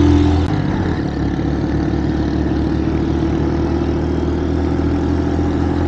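125 cc single-cylinder motorcycle engine running under way. Its note drops about half a second in, then holds a steady, pulsing beat.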